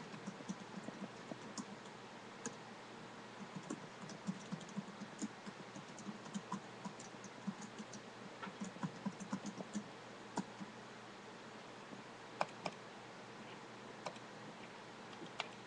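Computer keyboard typing in irregular runs of keystrokes for about ten seconds, then only a few scattered clicks.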